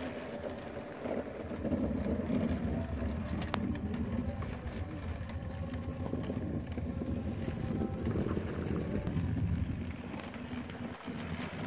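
Model trains running on a diorama layout: the motors and wheels on the track make a steady low rumble that grows fuller for several seconds as a train passes.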